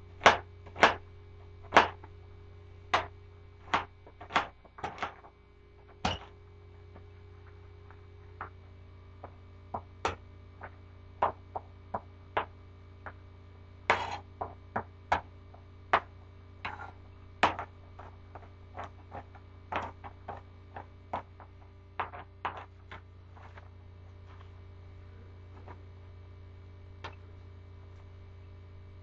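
Knife chopping on a cutting board: irregular sharp knocks, about one a second with some quick runs of two or three, over a steady low hum.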